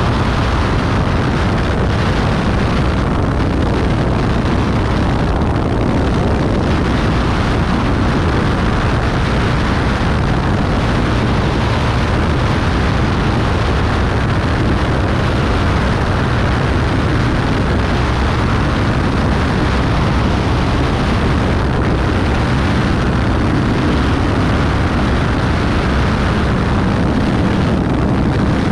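Beechcraft Bonanza B35's flat-six engine and propeller running steadily in flight, heavily mixed with wind rushing over an outside-mounted camera.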